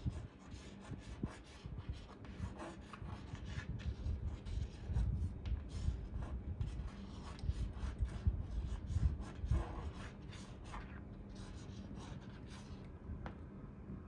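Green-cheeked conures' claws and beaks scratching and clicking on a wooden perch and sisal rope: scattered light clicks and soft rubbing. Low irregular rumbling bumps come from the handheld phone, mostly in the first half.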